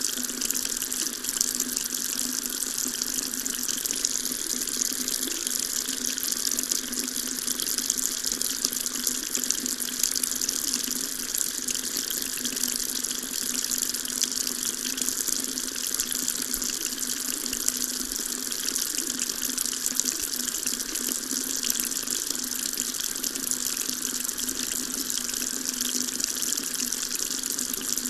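Water tap running steadily, a continuous splashing stream of water.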